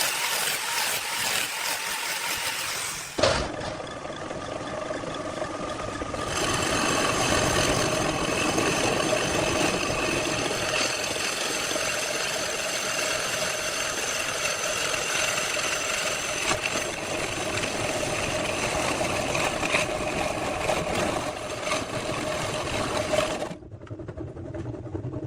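A workshop power tool running steadily with a constant motor whine. It starts abruptly, gives one sharp knock about three seconds in, changes to a fuller running sound a few seconds later, and cuts off shortly before the end.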